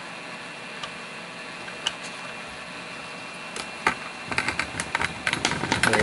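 Cardboard shipping box being opened by hand: a couple of light clicks, then from about four seconds in a run of crackling rustles and knocks as the flaps are folded back and the packing inside is handled.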